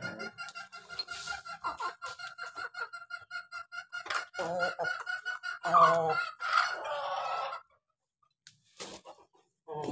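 Chickens clucking in a quick run of short, repeated calls, with a few louder squawks between about four and seven seconds in. The sound cuts off suddenly near the end.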